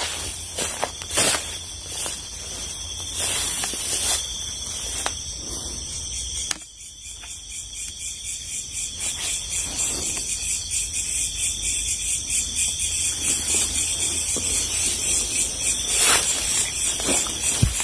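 Night insects trilling steadily at a high pitch, with footsteps and rustling through leafy undergrowth in the first six seconds. From about six and a half seconds in, the insect sound pulses rapidly, a few beats a second, and slowly grows louder.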